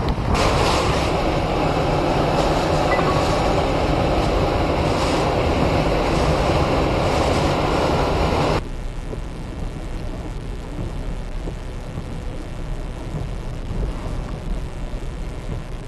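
Hurricane-force wind and heavy rain blowing as a loud, steady rush. A little past halfway it cuts off abruptly to a quieter, deeper rumble.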